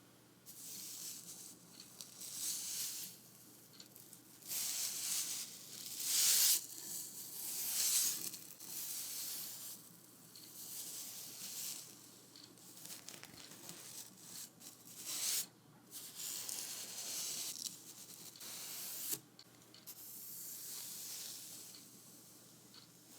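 A painting tool dragging paint across a wooden board. It makes a series of uneven, hissy scraping strokes, each about half a second to two seconds long, with short pauses between them.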